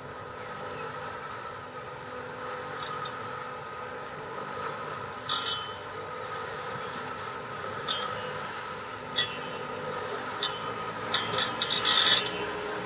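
Belrobotics BigMow battery-electric robotic lawnmower running as it drives across the grass, a steady motor whine. Short, sharp scraping sounds come every couple of seconds and bunch together near the end.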